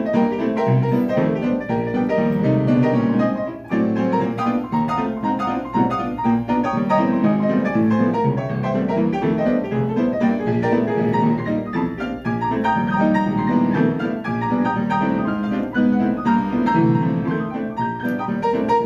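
Solo upright piano playing a jazz tune, a continuous run of chords and melody, with a brief drop in loudness just before four seconds in.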